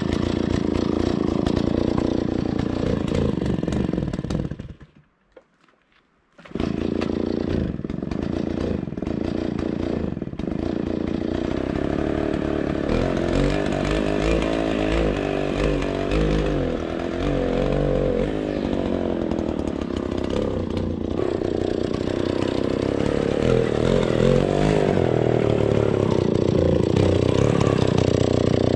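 Stihl 090 two-stroke chainsaw running and revving as it rip-cuts lengthwise along the top of a large spruce log, with the pitch shifting under load. The sound drops out briefly about five seconds in, then resumes.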